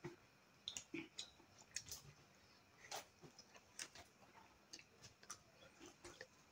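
Faint, scattered soft clicks and smacks of eating rice and greens by hand from steel plates, about a dozen spread unevenly.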